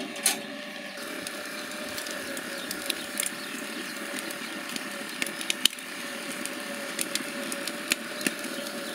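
Pork steaks sizzling under the glowing gas burner of a WE Grill overhead infrared grill: a steady hiss with scattered sharp crackles of spitting fat. A single metal clink comes just at the start as the wire grate is pushed back into place.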